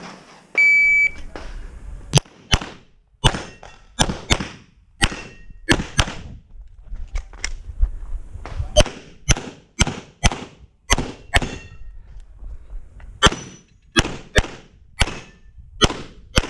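An electronic shot timer gives one short beep, then a handgun fires a long, fast string of shots starting about two seconds in, in quick bursts with a couple of brief gaps.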